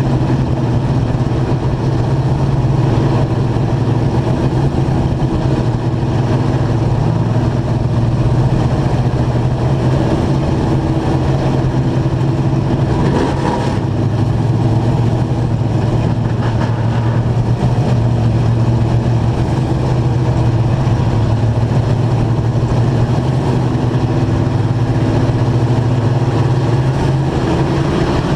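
Dirt-track stock car engine running hard under race load, heard from onboard the car, its pitch holding mostly steady with small wavers and climbing at the very end as the throttle opens.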